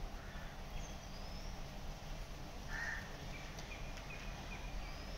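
Low background hum and room noise with a few faint, short, high chirps of distant birds.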